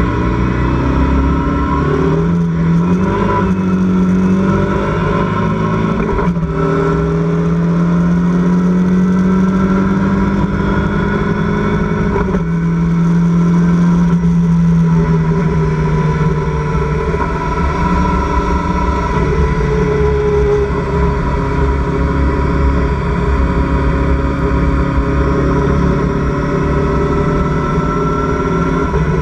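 Locost (Lotus Seven-style) race car engine at racing speed, heard from inside the open cockpit. It pulls hard with the pitch climbing, drops sharply in pitch at upshifts about 6 and 12 seconds in, and runs steadier with the pitch easing down in the second half.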